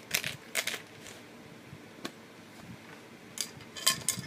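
Sharp clicks and light rattles of small metal coil-building tools being handled in their case: a couple of clicks near the start and a quick cluster near the end.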